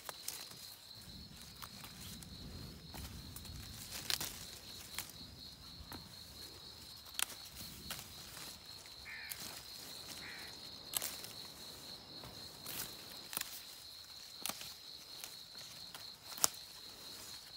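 Sharp clicks and leaf rustles as a hand moves through the leaves and branches of a peach tree, over a steady high-pitched tone, with two short bird chirps a little past the middle.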